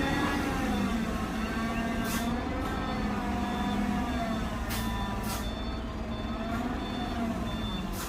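Heavy truck's diesel engine running under load, its pitch slowly rising and falling, with several short hisses of air and a faint, evenly repeating high beep.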